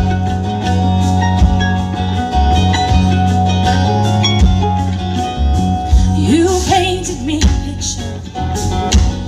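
A live band plays an amplified blues-country intro with guitar, bass and drums. About two-thirds of the way in, a short wavering melodic line enters above the band.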